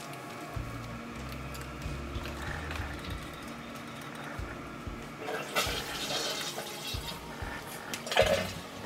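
Liquid being poured into a mug, in a rush about halfway through and a shorter, louder one near the end.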